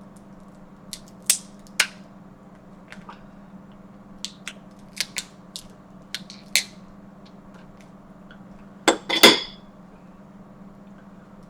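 Scattered sharp clicks and clacks of someone eating snow crab legs and shrimp by hand, shells and utensils against dishes, with a louder clatter about nine seconds in. A steady low hum runs underneath.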